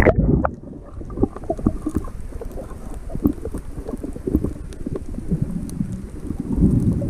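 Muffled underwater sound as the microphone goes under the sea about half a second in: the high end drops away, leaving a low rumble of moving water and bubbling with scattered short clicks and knocks.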